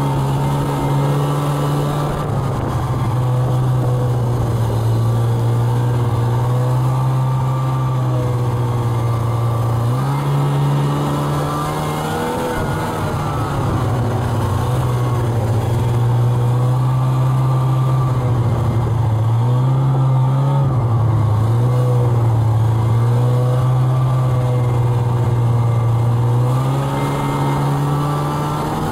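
Snowmobile engine running under way, mostly at a steady pitch, rising and falling a few times as the throttle is worked.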